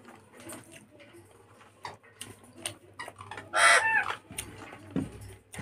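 Close-up eating sounds: wet mouth clicks and smacks while food is eaten by hand off a plate. About three and a half seconds in comes a brief, loud animal call that falls in pitch.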